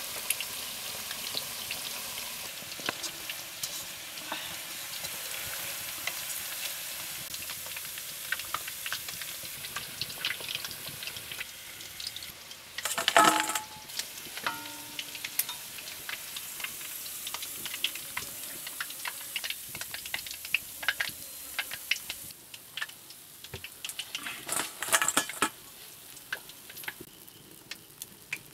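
Chicken pieces deep-frying in hot oil in an iron karahi, a steady sizzle with crackling pops. About halfway through, a wooden spatula stirs and scrapes against the wok loudly.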